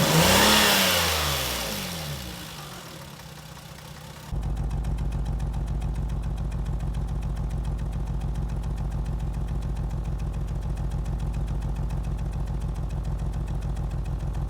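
Lexus IS200 engine revved and falling back, then, after a sudden change about four seconds in, running steadily at idle with an even low pulsing. The engine has a misfire on cylinders 1 and 2 that the owner puts down to a failed head gasket.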